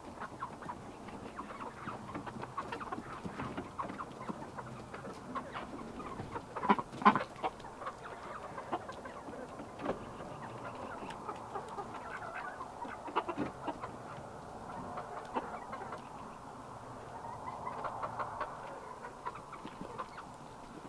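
A small flock of chickens clucking on and off in a wire run, with the loudest sounds about seven seconds in.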